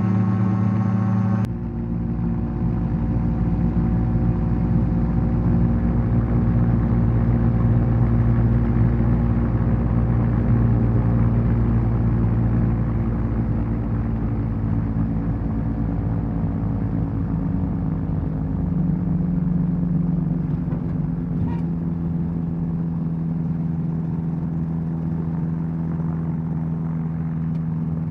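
Ultralight's Rotax 582 two-stroke engine running steadily with wind rush through approach and landing. The sound changes abruptly about a second and a half in, and the engine note shifts again about two-thirds of the way through.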